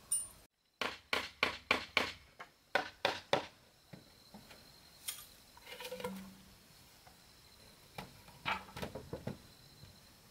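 Sharp knocks of hand carpentry on wooden boards, in quick succession at about four a second for a couple of seconds. Then a few scattered knocks, and a short cluster of knocks and clatter near the end as a board is handled.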